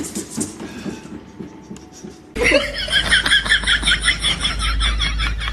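Large cat exercise wheel rolling with a rumble and quick knocks as a cat runs in it; about two seconds in it cuts to a person giggling rapidly over a low hum.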